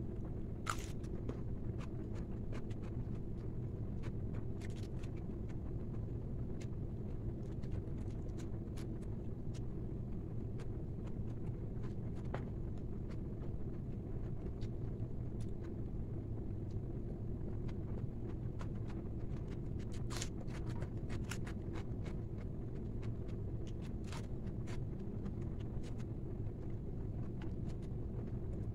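Steady low rumble of background noise with scattered faint clicks and smacks of people eating, a small cluster of them about two-thirds of the way through.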